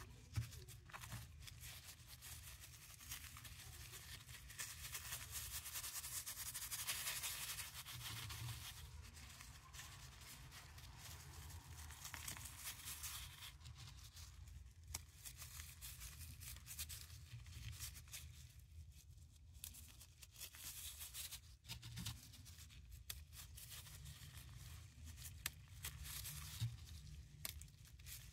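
Gloved fingers squeezing and rubbing crumbled paradichlorobenzene mothball granules into powder: a faint, gritty crunching crackle with scattered small clicks, loudest about six to eight seconds in.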